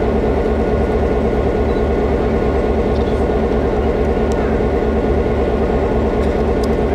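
A steady mechanical drone with a low, even pulsing throughout, and a few faint clicks in the second half.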